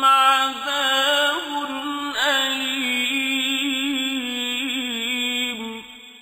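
A male reciter chanting the Quran in the melodic mujawwad style: a long drawn-out phrase of held, ornamented notes. The voice stops near the end and trails off in echo.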